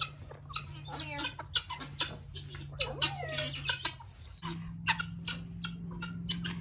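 Chickens clucking in short calls through the first few seconds, with sharp crunching steps on dry leaves and straw and a low steady hum underneath.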